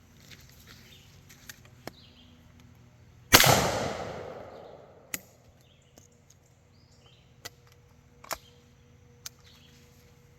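A single shot from a Harrington & Richardson Topper Model 58 single-shot 12-gauge shotgun about three seconds in, with an echo that fades over a second or so. A few sharp clicks follow: the break-open action being opened and reloaded for the next shot.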